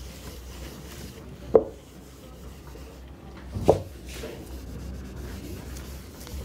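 A hand rubbing marker writing off a whiteboard, a low scuffing, with two short, louder noises about two seconds apart.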